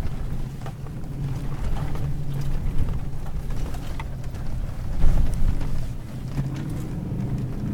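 Four-wheel-drive SUV driving over desert sand, its engine running with a steady low hum.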